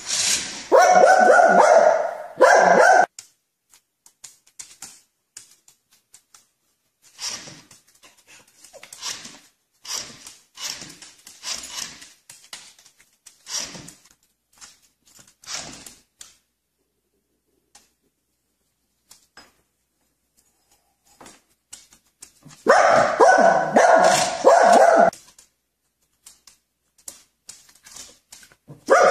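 A dog barking in loud stretches at the start and again about 23 seconds in, with quieter short sounds in between.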